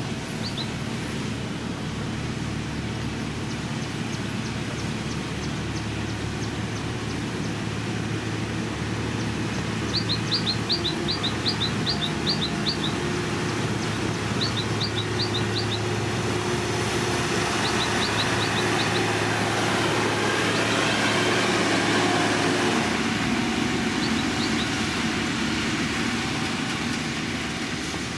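Diesel engine of heavy road-building machinery running steadily, growing louder past the halfway point and easing off near the end. A bird chirps in quick runs of short high notes several times.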